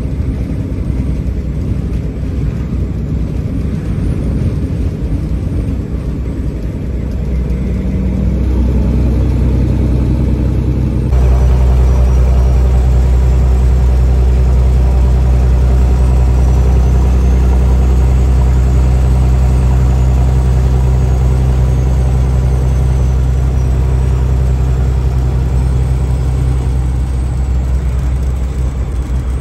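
Semi truck's engine heard from inside the cab, with a low rumble at first. About a third of the way in it cuts abruptly to a louder, very steady engine drone as the truck cruises.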